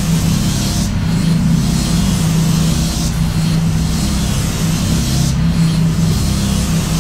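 Harsh noise music: a loud, unbroken mass of hiss and rasping static over a low steady drone, the high hiss thinning briefly about a second in and again near the end.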